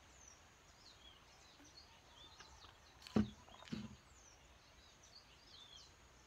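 Small birds chirping in the background, many quick, high, falling chirps. About three seconds in, two short thumps half a second apart are the loudest sounds.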